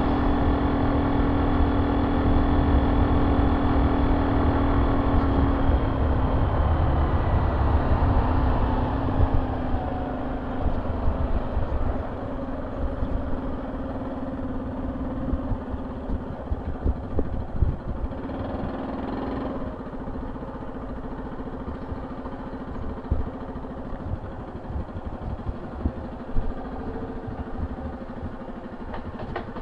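Honda C70's small single-cylinder four-stroke engine through an aftermarket banana-style ('pisang') exhaust, running at a steady cruise with wind on the microphone. It then drops in pitch as the throttle is closed and the bike slows, and settles to a quieter idle in the second half.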